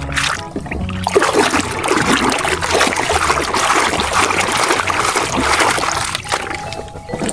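Water splashing and trickling as a muddy toy tractor is washed by hand. The splashing starts about a second in and dies away near the end, with background music underneath.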